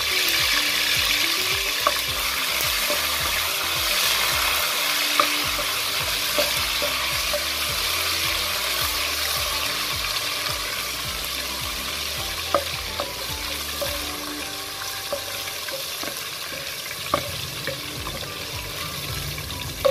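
Sliced onions and whole spices sizzling steadily in hot oil in a stainless-steel pot, stirred with a wooden spoon that knocks against the pot now and then with a few sharp clicks.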